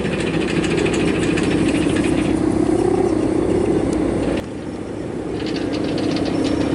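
Steady droning hum of a Balinese kite's hummer (guangan) singing in the wind. It wavers a little in pitch and dips briefly in level about four and a half seconds in.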